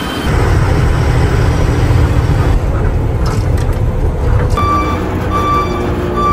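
Six-wheel truck's diesel engine running with a steady low rumble, then, about two-thirds of the way through, its reversing alarm starts beeping evenly, about one and a half beeps a second, as the truck backs into a parking spot.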